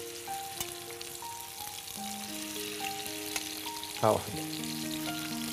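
Chicken wings frying in hot oil in a pan, a steady sizzle, under soft background music of held notes.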